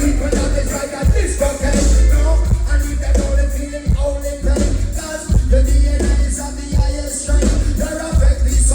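Live reggae band playing, with a heavy bass line and steady drum hits.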